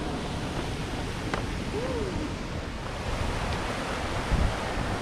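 Fountain jets splashing into a large pool: a steady rushing of falling water. A brief low thump about four seconds in.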